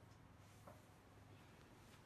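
Near silence: faint room tone with a low steady hum and one soft click.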